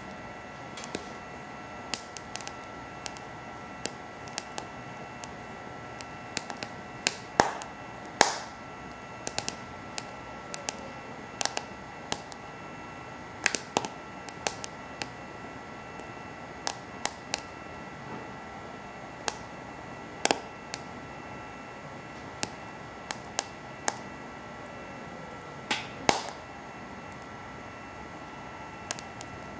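Wood fire burning in a BioLite camp stove, crackling with irregular sharp pops and a few louder snaps, over a steady hum.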